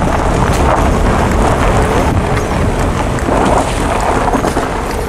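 Wind rushing and buffeting against the microphone of a moving vehicle, over a steady low rumble of the vehicle running on the road.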